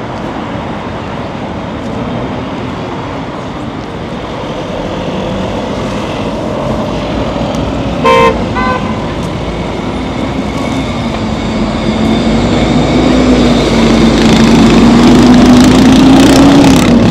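City street traffic: vehicles running past, with a short car-horn honk about halfway through and a second, fainter one just after it. In the second half a vehicle's engine hum grows steadily louder.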